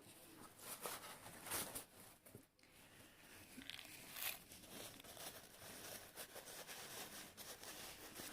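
Faint rustling and crinkling of a paper napkin being torn and stuffed into a party popper on top of a load of airsoft BBs, packing them in so they don't rattle.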